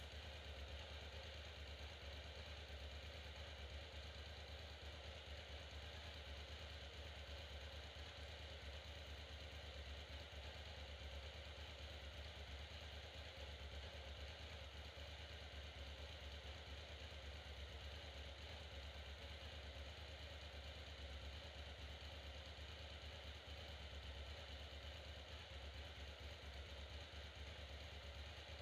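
Faint steady low hum with a light hiss: room tone, with no distinct sounds.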